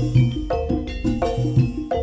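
Live East Javanese jaranan gamelan music: struck metal keyed instruments ring in a quick repeating pattern over drum beats and a deep bass.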